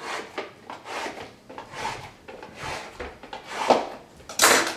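Small cardboard trading-card boxes being torn open and handled on a tabletop: a run of short rustling, scraping swishes, the loudest one near the end.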